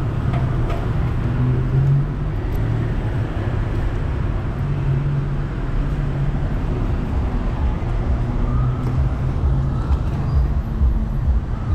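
Steady low rumble of road traffic, with engine hum swelling and fading as vehicles pass.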